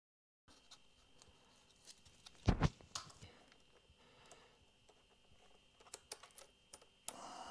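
Small clicks and taps of hands fitting a cable lead onto a motorcycle battery terminal, with a louder knock about two and a half seconds in and a few more clicks near the end.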